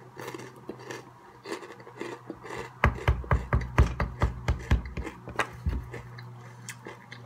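Hot Cheetos being chewed with the mouth closed: a fast run of crunches, about four a second, starts about three seconds in and lasts some three seconds.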